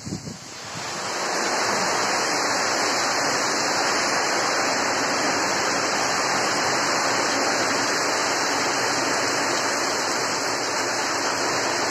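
Heavy cyclone rain pouring steadily. It swells up over about the first second and then holds.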